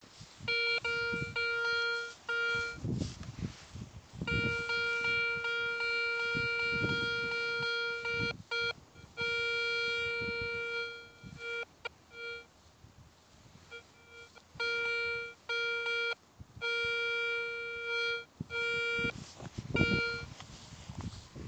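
Metal detector sounding its target tone as the search coil is swept back and forth over grass: a steady, buzzy beep that holds for several seconds at a time and breaks into short chopped beeps with each pass. The detectorist takes the signal for a tsarist-era coin. Low rustles come between the beeps.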